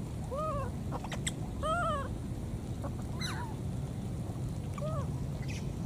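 Baby monkeys calling: three short coos that rise and fall in pitch, spaced a second or more apart, and one call that falls steeply in pitch near the middle.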